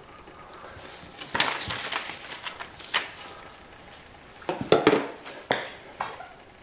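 Box cutter blade slicing through a paper template and the paper rustling as the cut-out piece is pulled free, in several short bursts.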